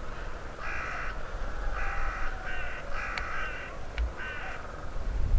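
A crow cawing: five harsh caws spread over about four seconds, over a low rumble.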